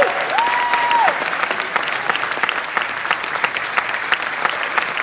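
Audience applauding steadily after a jazz combo performance, with one high held cheer in the first second.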